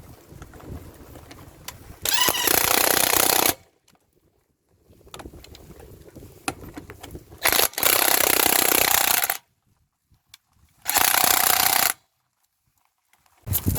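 Porter-Cable 20V Max cordless 1/2-inch impact wrench hammering in three bursts of one to two seconds each, breaking loose and spinning off trailer lug nuts. Quieter handling noise between the bursts.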